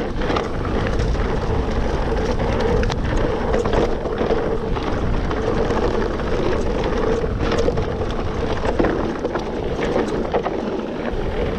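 Wind rushing over the camera microphone and mountain bike tyres rolling over a dirt trail during a fast descent, with scattered knocks and rattles from the bike hitting bumps.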